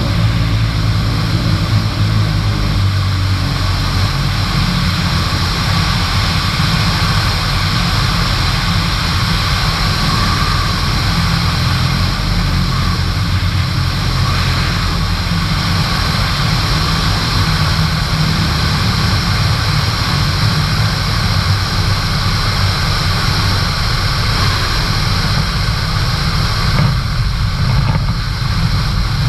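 Van's RV-7 light aircraft's piston engine and propeller droning steadily, mixed with wind rush, picked up by a GoPro mounted on the tail during the final approach and landing. The sound eases slightly near the end as the plane reaches the runway.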